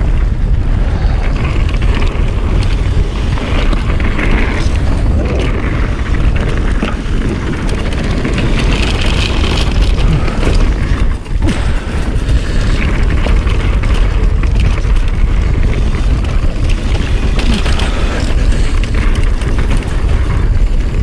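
Wind rushing over the camera microphone of a mountain bike ridden fast down a dirt trail, a loud low rumble, with tyre noise and a few sharp knocks as the bike goes over bumps.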